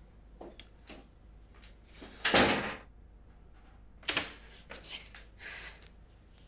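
A door opening and shutting: one loud clunk about two seconds in, followed by a few lighter knocks.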